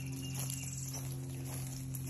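Footsteps on a sandy trail, about two a second, under a steady low buzz from deer flies.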